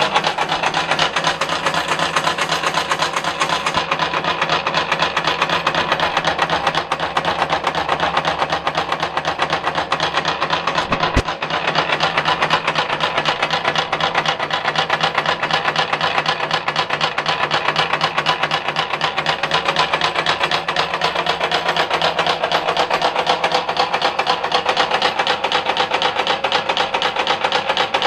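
Homemade twin-roller coal crusher running, driven by a three-phase electric motor through a V-belt, its rollers turning at about 200 rpm. Steady, fast, even mechanical clatter.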